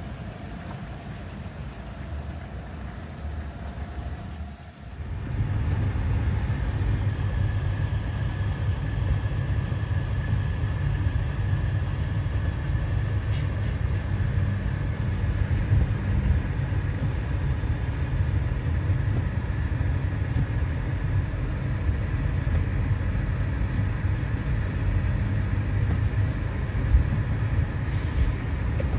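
Car driving on a snow-covered road, heard from inside the cabin: a steady low rumble of tyres and engine. It comes in abruptly about five seconds in, after a quieter stretch.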